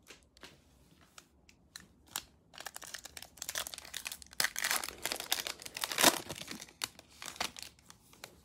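Foil wrapper of a basketball trading-card pack being torn open and crinkled as the cards are pulled out. A few light clicks come first; the crinkling starts about two and a half seconds in and runs about five seconds, with a sharp crackle about six seconds in.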